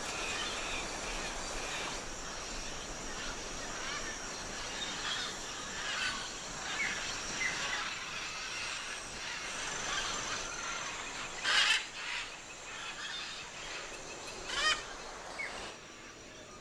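Birds calling: scattered short calls over a steady hiss, with two louder calls about three seconds apart in the last third.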